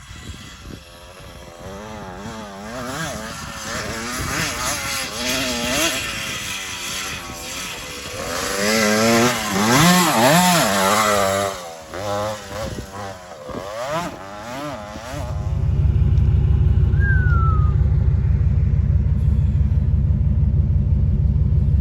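Pit bike engine being ridden, revving up and down over and over as the throttle opens and closes. About fifteen seconds in this gives way to a steady, loud, low rumble.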